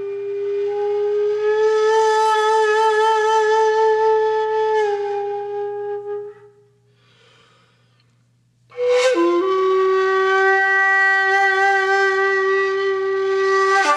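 Background music: a wind instrument playing long held notes with a few slow changes of pitch. It fades out about six and a half seconds in and comes back about two seconds later, starting with a short downward slide into the next held note.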